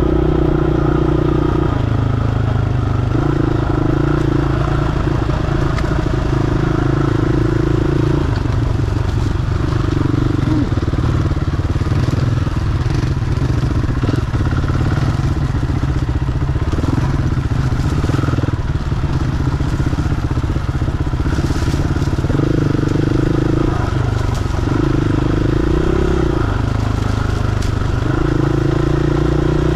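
KTM 500 single-cylinder four-stroke dirt bike engine pulling along a trail, its revs rising and falling every couple of seconds as the throttle is opened and closed. Rattles and knocks come from the bike over the rough ground, mostly in the middle stretch.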